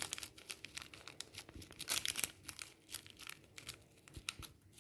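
Dry crinkling and crackling, a run of short irregular ticks, as dried oregano is sprinkled by hand over a plate of pasta.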